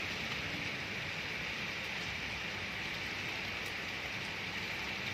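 Steady rain falling, a continuous even hiss with no separate drops standing out.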